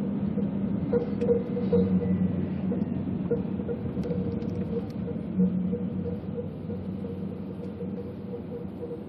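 A car's engine and road noise heard from inside the cabin while driving in slow city traffic: a steady hum with a constant low drone that slowly gets quieter as the car slows down.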